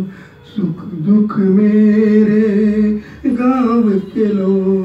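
A man singing a wordless stretch of a Hindi song into a microphone, holding long steady notes, with a falling glide about three seconds in.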